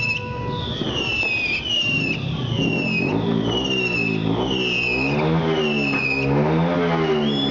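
Electronic siren-like wails sweeping down in pitch over and over, about one to one and a half sweeps a second, two of them overlapping out of step. A lower wavering, up-and-down tone runs beneath them, growing plainer in the second half.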